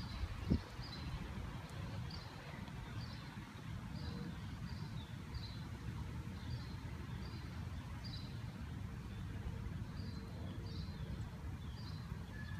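A small songbird chirping over and over, short high notes about two a second, over a low steady rumble.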